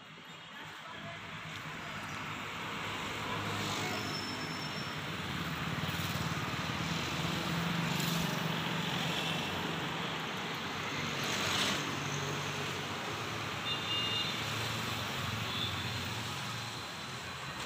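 Road traffic noise, with a motor vehicle engine running close by that swells over the first few seconds and then holds steady.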